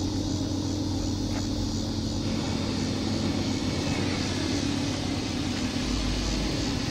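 Federal Signal 3T22 three-tone outdoor warning siren sounding its steady full-alert chord, held at an even pitch and level.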